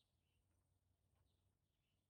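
Near silence: faint background with a few very faint, brief high chirps.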